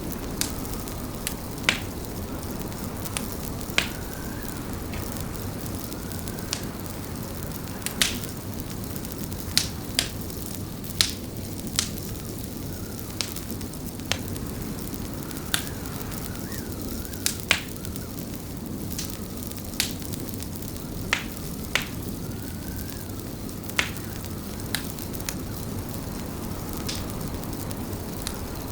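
Fireplace crackling: sharp, irregular pops, often a second or two apart, over a steady low rumble.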